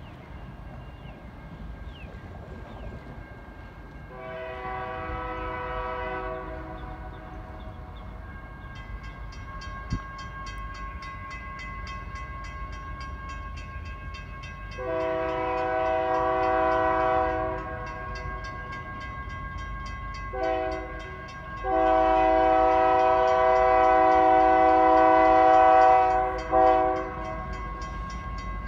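Lead locomotive's multi-note air horn sounding for a grade crossing as a diesel freight train approaches: two long blasts, then a short one and a long one, with a brief extra toot near the end. The diesel engines rumble steadily underneath.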